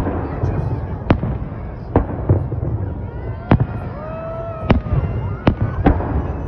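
Fireworks display with aerial shells bursting overhead: a run of sharp bangs at uneven gaps of about a second.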